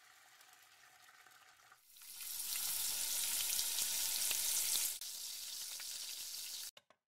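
Battered raw mango pakoda pieces sizzling as they deep-fry in hot oil in a kadai. The sizzle comes in loud about two seconds in, drops to a lower level about five seconds in, and cuts off shortly before the end.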